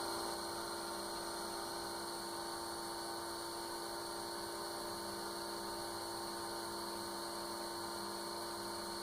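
PC cooling fan in a homemade solder smoke extractor running steadily: an even hum with a constant airy hiss.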